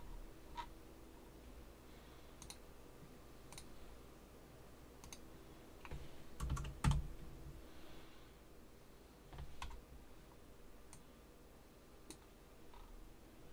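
Faint, scattered computer mouse clicks and keyboard keystrokes from CAD work, with a few louder knocks on the desk about halfway through.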